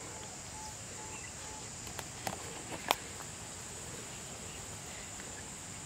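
Steady high insect drone over the pond-side outdoor background, with three sharp clicks about two to three seconds in, the last the loudest.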